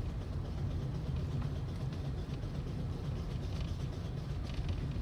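Cabin noise of a 2012 Toyota Aqua hybrid driving at about 30 km/h: a steady low rumble from the road and drivetrain.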